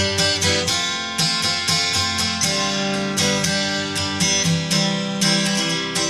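Background music: acoustic guitar strummed in a steady rhythm, chords struck about twice a second.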